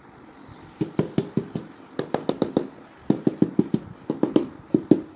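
Rubber mallet tapping a ceramic wall tile to bed it into the mortar behind it. Quick sharp taps come in runs of four or five, about five a second, with short pauses between the runs.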